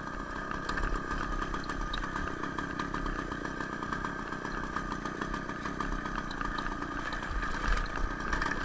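Two-stroke Ural chainsaw engine on a homemade moped, running steadily under way.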